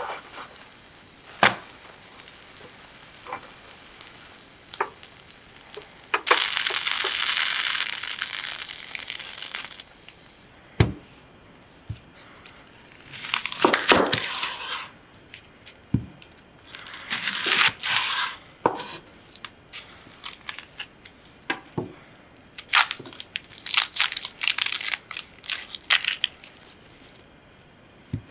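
An onion being peeled and cut with a knife on a wooden cutting board: its dry, papery skin crackles and tears in quick runs, with single knocks of the knife on the board. About a quarter of the way in there are a few seconds of steady hiss.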